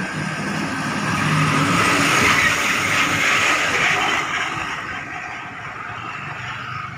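A diesel coach bus passing close by: engine and tyre noise swell to a peak about two to three seconds in, then fade as it pulls away.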